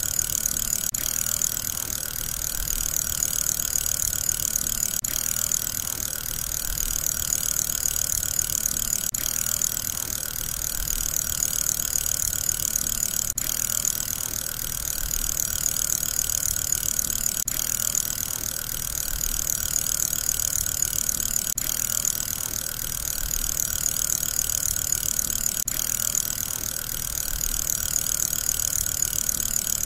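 Steady mechanical whirring used as the sound of a spinning fidget spinner, a loop that swells gently and repeats about every four seconds.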